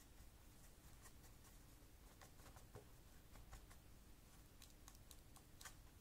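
Near silence: room tone with a few faint clicks and taps from a paintbrush being worked in a paint palette and dabbed on kitchen roll.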